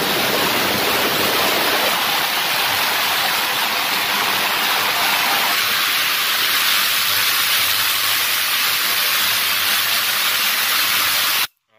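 Ultrasonic parts cleaner running with scooter engine parts in its liquid-filled stainless tank: a loud, steady hiss that cuts off abruptly near the end.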